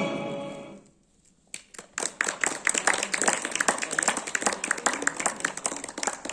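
Music dies away, and after a brief pause an audience breaks into applause: many hands clapping, thinning out near the end.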